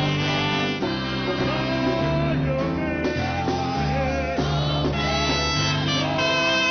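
Live church praise-and-worship music from a band, with guitar and held bass notes under a melody line.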